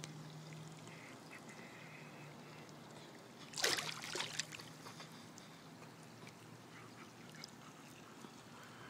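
Muffled underwater pool sounds through a submerged phone microphone: a low steady hum with faint ticks, and a short rush of bubbling and splashing about three and a half seconds in.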